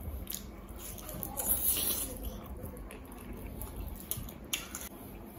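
Close-up mukbang eating sounds: wet chewing and lip smacks on mutton and rice, with the squish of rice being pressed in the fingers. The loudest burst of smacking comes a bit over a second in.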